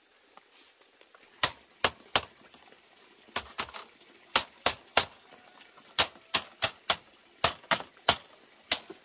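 Machete blade striking the bamboo strips of a hand-woven mat: a series of sharp knocks in quick groups of two to four, starting about a second and a half in.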